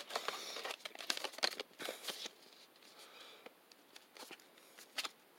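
Plastic packaging crinkling and crackling as a pack of fishing hooks is handled, busy for about the first two seconds, then only a few small ticks.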